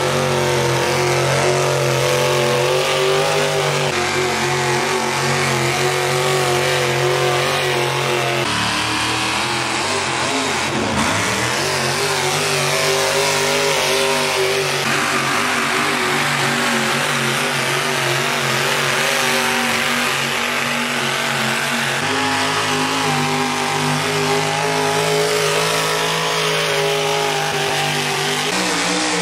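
Pulling trucks' engines running at full throttle as they drag a weight-transfer sled, several separate pulls cut one after another; the engine note jumps at each cut, and about ten seconds in it dips and climbs again.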